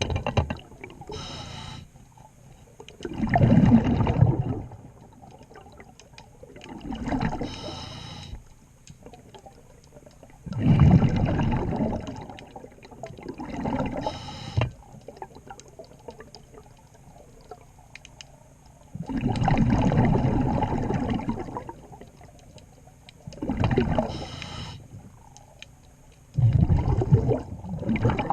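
A scuba diver breathing through a regulator underwater, with bubbles gurgling out in surges every few seconds and quieter hissing between them.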